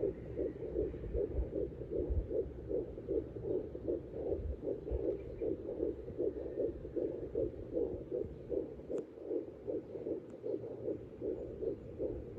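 Fetal heartbeat picked up by a handheld fetal Doppler and played through its speaker: a fast, even, whooshing pulse, the normal fetal heart rhythm.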